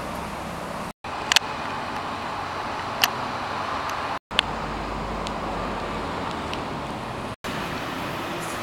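Steady road-vehicle noise, broken into four short stretches by brief silent gaps, with a few sharp clicks.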